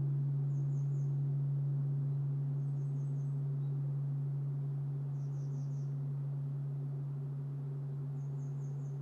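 Large Japanese temple bell (bonshō) humming as it dies away after a strike: a steady low hum that fades slowly. A small bird gives short runs of three or four high chirps every two or three seconds.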